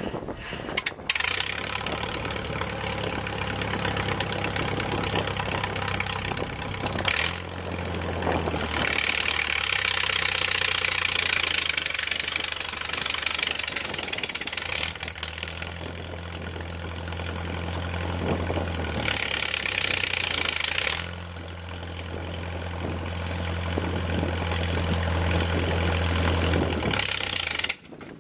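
Farmall 300 tractor engine running steadily under load as it pulls a disc harrow and a quack digger through the soil, with the towed steel implements rattling as they go.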